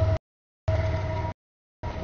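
Double-stack freight train rolling past a grade crossing: a low rumble with a steady whine over it. The sound comes in chunks under a second long and cuts out completely between them.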